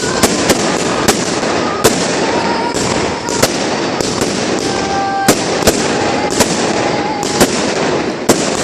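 Fireworks display: about a dozen sharp bangs at irregular intervals, roughly one or two a second, over a constant dense crackle.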